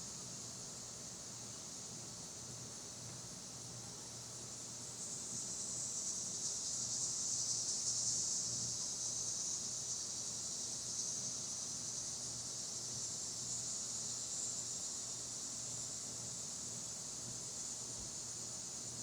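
Steady high-pitched buzzing chorus of summer insects, swelling louder about five seconds in and then easing back a little.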